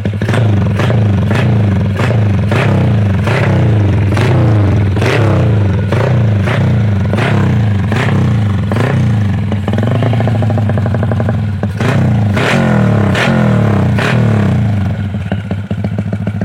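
Yamaha LC135 V1 motorcycle's single-cylinder four-stroke engine running through an aftermarket LeoVince silencer on custom-made piping, revved in quick repeated throttle blips, about one and a half a second. The blips pause briefly about two-thirds of the way through, then resume.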